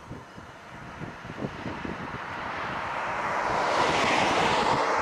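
A vehicle passing on the highway: tyre and engine noise that builds to its loudest about four seconds in and then begins to fade. Wind buffets the microphone in the first couple of seconds.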